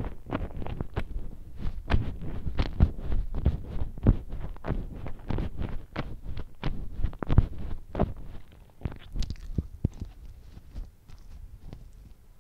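Chewing and mouth sounds of someone eating donuts: a quick run of wet clicks and smacks, thinning out and getting quieter after about eight seconds.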